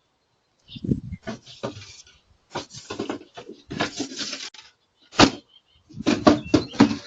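Handling noises: a run of knocks, clatters and scraping in bunches, with one sharp bang about five seconds in.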